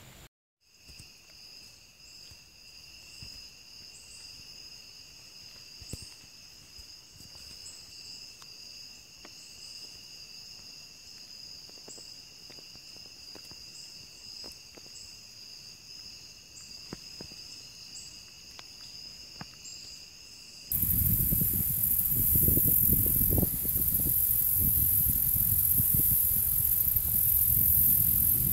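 Steady high insect trill with faint scattered ticks. About two-thirds of the way in it cuts off and gives way to much louder wind rumbling on the microphone, with a high hiss.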